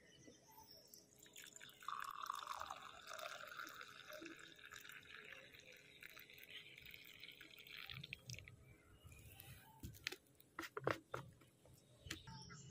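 Milky tea pouring from a vacuum flask into a small cup, a steady trickle that stops about eight seconds in. A few light knocks follow near the end.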